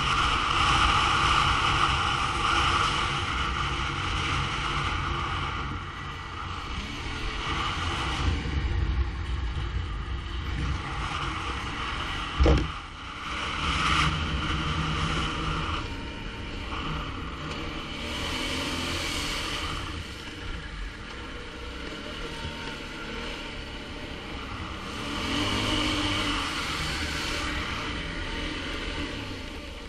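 ATV engine running under way, its note rising and falling with the throttle, with one sharp loud thump about midway through.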